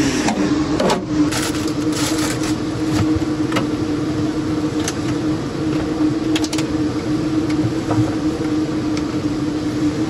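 A steady, even-pitched mechanical hum, like a motor running, with scattered clicks, knocks and rattles of things being handled inside a van, most of them in the first couple of seconds.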